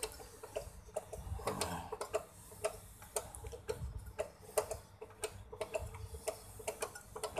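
Hand tapping an M5 thread into an aluminium fishing-reel frame: a run of light, sharp metallic clicks, about two or three a second, from the tap and its handle being worked round by hand. There is a brief rustle about a second and a half in.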